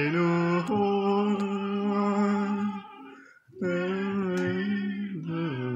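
A voice humming a slow tune in long held notes that step up and down in pitch, with a short break for breath a little past three seconds in.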